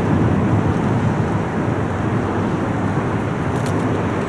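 Steady low rumble of freeway traffic, an even roar without breaks.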